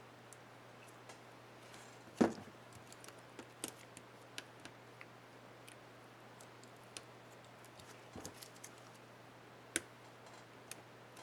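Scattered small plastic clicks and taps from handling and fitting a laptop spacebar keycap on an HP dm4 keyboard, with a louder knock about two seconds in and a sharp click near the end, over a faint steady hum.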